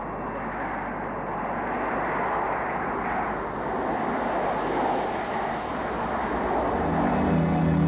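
Jet engine noise from the first Airbus A320's CFM56 turbofans, a dense rushing sound that slowly grows louder. Music comes in near the end.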